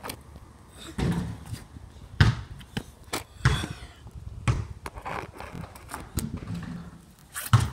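Irregular thuds and scrapes as a phone is handled and propped on a concrete driveway, mixed with a basketball bouncing on the concrete.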